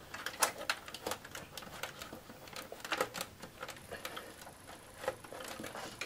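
Irregular clicks and rustling as power supply cables and their plastic connectors are handled and pushed about inside a metal computer case.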